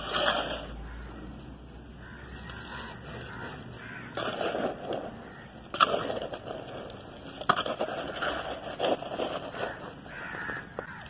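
Dry charcoal powder and chunks crunching and rustling as a hand digs into them and crumbles them, coming in uneven bursts, with a couple of sharper cracks about six and seven and a half seconds in.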